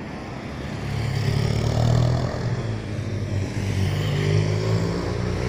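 Police escort motorcycle riding past at low speed, its engine running with a steady low hum; a car passes too. The sound grows louder about a second in and stays loud as they go by.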